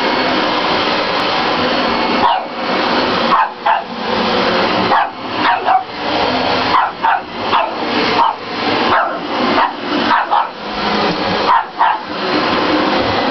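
Dyson Ball upright vacuum cleaner running on carpet, its steady noise dipping again and again from about two seconds in as it is pushed back and forth. A Shih Tzu puppy barks several times over it.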